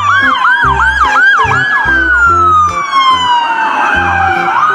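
Police car siren sound: a fast yelp of quick rising and falling sweeps over a slower wail that falls steadily and jumps back up near the end, with background music underneath.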